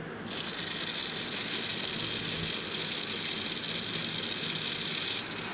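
Electric jug blender switching on a moment in and running steadily, its motor giving a high-pitched whine as it purées cooked phalsa berries with water.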